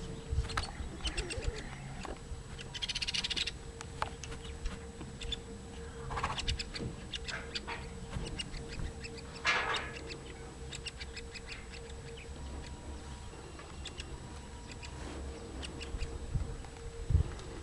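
Baby woodpecker giving a few harsh, buzzy calls, spaced several seconds apart. A steady low hum and some knocks and rumble lie beneath.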